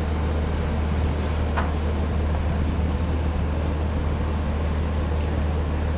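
Canal tour boat's engine idling with a steady low rumble.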